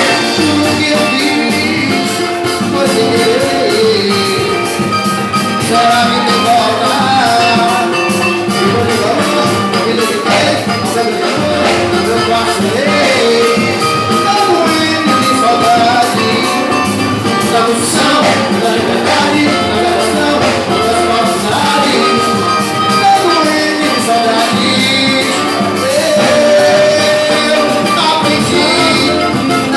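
Live band playing upbeat Latin-style Brazilian popular music with percussion and a moving melody line.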